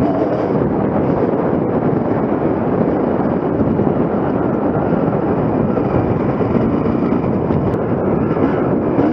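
1998 Kawasaki KX250 two-stroke single-cylinder motocross engine running under load on a dirt track, its pitch rising and falling as the throttle is worked, heard from a helmet camera.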